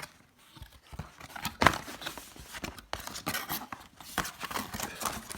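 Speaker packaging being handled during unboxing: rustling with scattered clicks and taps, and a sharp knock about a second and a half in.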